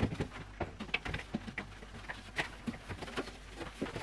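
A cleaning pad wiping the plastic walls and door shelves inside an empty fridge: a string of brief, irregular rubs and light taps.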